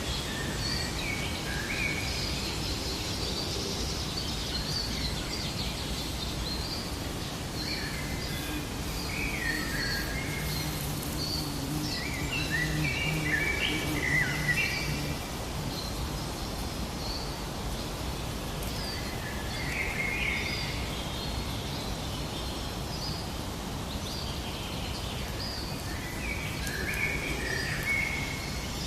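Several birds chirping and calling in short, repeated phrases over a steady low outdoor background noise.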